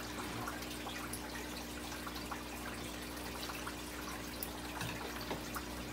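Steady trickle and drip of aquarium water, with a low steady hum underneath and a few faint ticks.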